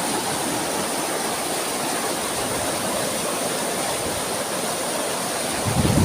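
Steady rushing water of a river current and small waterfall, with a brief low thump near the end.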